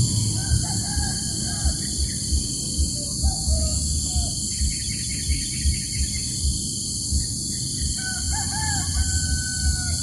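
A rooster crowing faintly three times, each crow wavering and then held, over a low rumble of wind on the microphone and a steady high-pitched drone.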